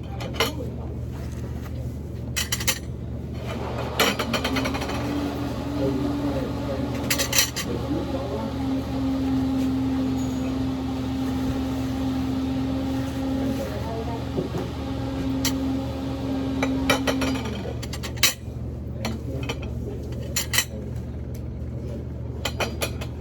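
Cutlery and dishes clinking at a meal, a few sharp clicks scattered through, over a steady low hum and background voices. A held, even tone sounds from about four seconds in until a few seconds past the middle.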